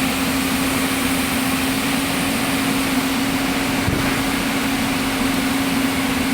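Excavator's diesel engine running steadily with a constant hum. There is a brief low knock about four seconds in.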